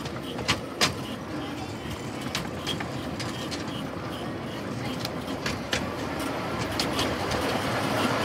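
Miniature railway train running along the track: a steady rumble of the wheels with sharp clicks as they cross rail joints, growing slowly louder toward the end.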